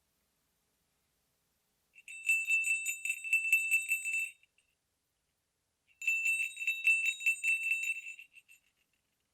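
Sleigh bells shaken in two bursts of jingling, each about two seconds long, with a pause between.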